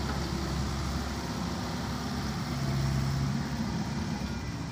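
Small Volvo wheeled excavator's diesel engine running under hydraulic load as the arm works after dumping a bucket; the engine note strengthens and rises a little around the middle.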